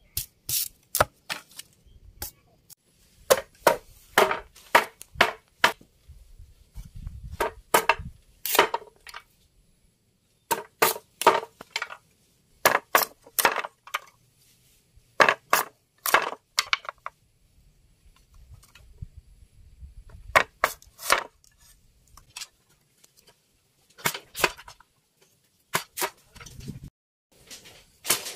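Green bamboo being split into thin strips with a knife and machete: sharp cracks and knocks in quick clusters, with short pauses between.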